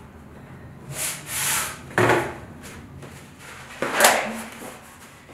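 Rolled canvas styling mat slid out of a cardboard mailing tube with a hissing scrape, a sharp knock about two seconds in, then the stiff canvas rustling loudly as it is unrolled and shaken open about four seconds in.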